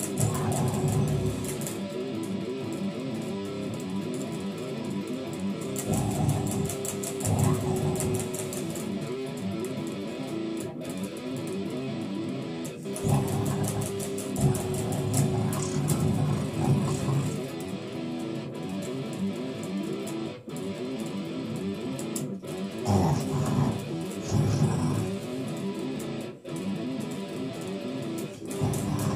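Electric guitar played alone, strumming chords and riffs through a song.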